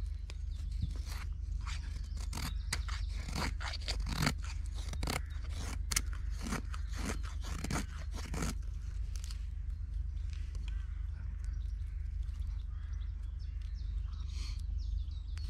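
Knife shaving a wooden stick into curls, a quick irregular series of scraping strokes that stops a little past halfway, followed by a few fainter scrapes.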